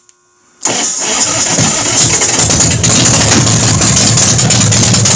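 Big Dog Ridgeback motorcycle's V-twin engine starting from cold with the enricher (choke) pulled on, catching about half a second in and then running, a step louder about three seconds in.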